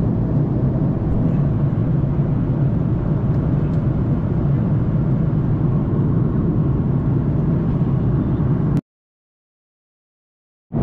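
Steady rumble of a jet airliner's cabin in flight, engine and airflow noise. It cuts off abruptly to dead silence for about two seconds near the end, then comes back.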